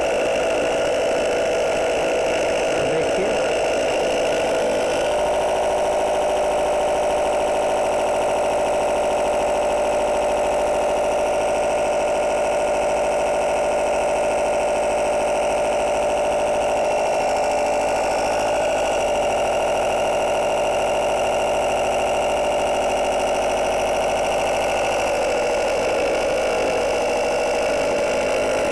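12 V mini piston air compressor running with a steady mechanical hum and vibration while pumping into a motorcycle tyre; it is early in the fill, with no pressure showing on its gauge yet.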